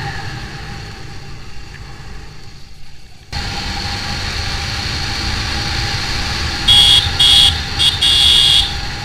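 Single-cylinder engine of a TVS Apache RTR 200 motorcycle running under way, with wind and road noise; it is quieter for about three seconds, then jumps up suddenly. Near the end a horn beeps four times in quick succession.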